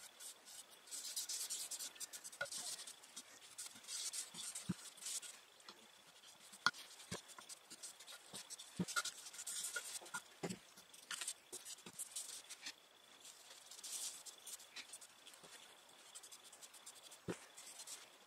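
Ink applicator rubbing and scrubbing alcohol ink onto a pine board: faint, repeated hissing strokes, each lasting around a second, with a few light knocks as the wooden piece is handled on newspaper.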